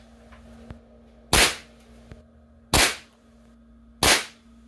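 Three shots from a Crosman 2240 .22 CO2 air rifle with a 14.6-inch barrel, each a sharp pop about a second and a half apart, fired in quick succession. There are faint clicks between the shots.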